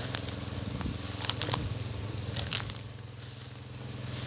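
Small engine running steadily, with a few sharp crackling clicks and rustles at the start, about a second and a half in, and near two and a half seconds.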